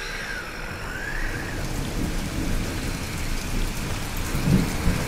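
Rain hiss over a low, uneven rumble on a moving, rain-wet camera. A faint high whistle dips and rises in the first second and a half.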